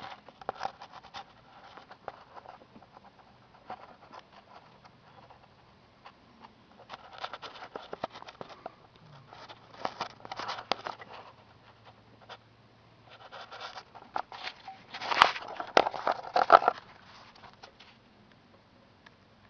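Handling noise of a hand-held camera being worked into a cramped engine bay: irregular bursts of scraping, rubbing and clicking, loudest near the end, over a faint low hum.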